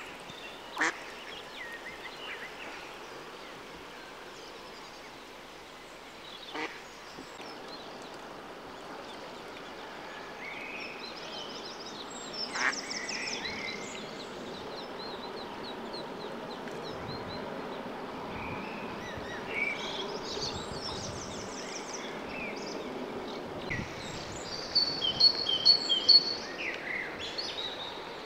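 Mallard ducklings peeping: short, high calls in quick series that come and go, loudest in a burst near the end. A few sharp clicks stand out against a steady outdoor hiss.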